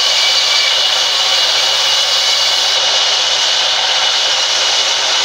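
Sawmill band saw running and cutting through timber as planks are fed through the blade: a loud, continuous rushing noise with a steady high tone.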